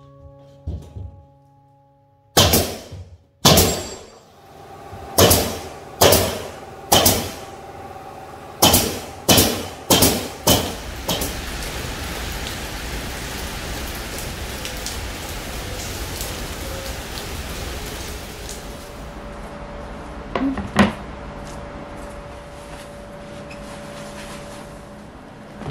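A run of about a dozen loud strikes, roughly one a second, as OSB boards are nailed onto a stud wall. This gives way to the steady hiss of heavy rain, which fades near the end into quieter room sound with a couple of knocks.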